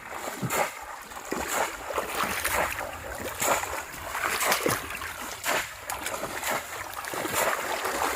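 Repeated splashing and sloshing in shallow rice-field water, with irregular splashes about twice a second.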